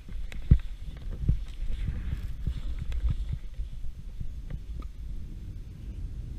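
Skis running through deep powder snow, a low rumbling hiss from the snow and wind on the microphone, broken by irregular thumps as the skis hit bumps; the hardest thump comes about half a second in.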